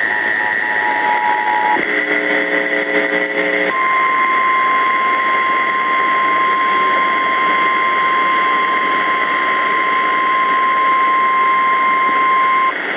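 Emergency Alert System attention tones heard over radio hiss. A two-tone attention signal ends about two seconds in, a brief lower buzzy tone follows, then the single steady NOAA Weather Radio warning alarm tone holds for about nine seconds. This signals a tornado warning about to be read.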